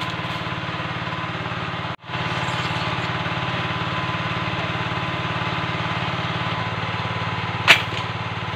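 A single sharp snap near the end as a rubber-band speargun is fired at fish in the water, over a steady engine-like drone that briefly drops out about two seconds in.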